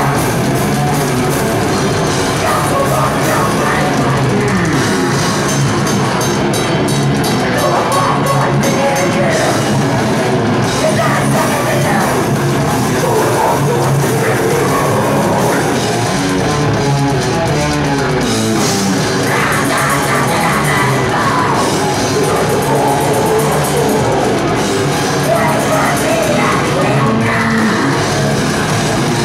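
Heavy metal band playing live at a steady, high volume, with a drum kit and electric guitars.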